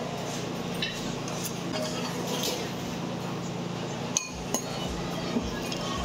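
A metal spoon clinking against a ceramic soup bowl as soup is stirred and scooped: a few sharp clinks, the loudest about four seconds in, over a steady low background hum.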